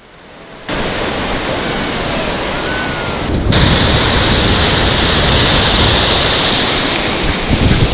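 Ocean surf washing onto a beach, a steady rushing noise with some wind on the microphone. It comes in from silence in the first second and gets louder about three and a half seconds in.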